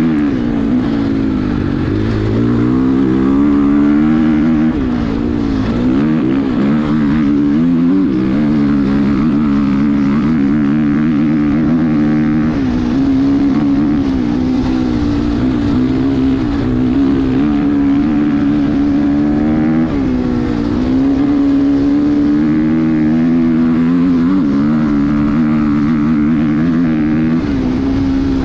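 A 2019 Husqvarna FC450's single-cylinder four-stroke engine running hard at race speed through an FMF titanium silencer. The pitch dips and climbs back a few times, but mostly the engine holds steady at high revs.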